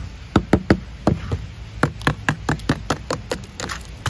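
A long-handled squeegee scraper knocking on the ice-glazed windshield of a car in a quick, irregular run of sharp taps, about four a second. Light tapping like this cracks the ice crust so it comes loose from the glass.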